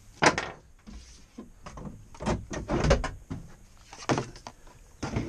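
A sharp clack about a quarter second in, then a series of irregular knocks, scrapes and heavier thuds as a plastic kayak and its tie-down strap are handled in a pickup truck bed under a raised hard bed cover.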